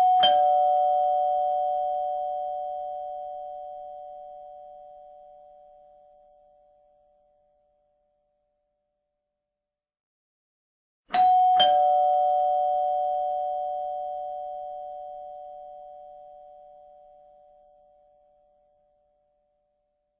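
Two-tone ding-dong doorbell chime, rung twice about eleven seconds apart; each time a higher note is followed by a lower one, and both ring out slowly for several seconds.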